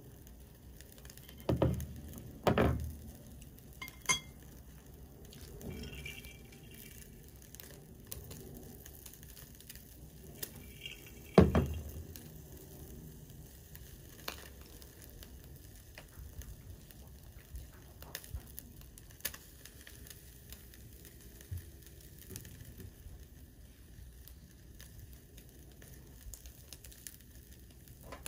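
Meat sizzling faintly on a small tabletop BBQ stove grill, with scattered small pops and crackles. Three dull thumps stand out, the loudest about eleven seconds in.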